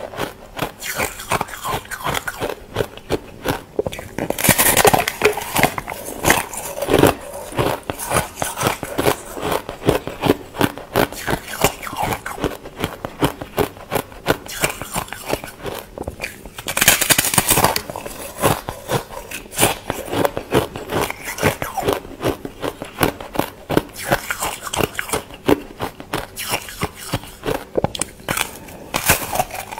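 A slab of yellow ice crunching and crackling as it is bitten and chewed close up: a dense run of crisp cracks, with louder bursts about five seconds in and again around seventeen seconds.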